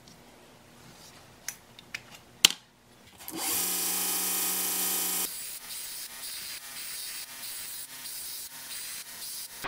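A few light clicks and a sharp tap, then a belt grinder starts about three seconds in and runs free with a steady whine. About two seconds later the steel hatchet head is pressed to the belt and the whine gives way to grinding, which swells and eases about twice a second as the head is worked against the belt, throwing sparks.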